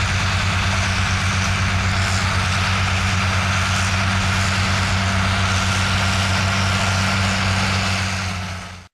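Tractor engine running steadily at a low, even speed, fading out quickly near the end.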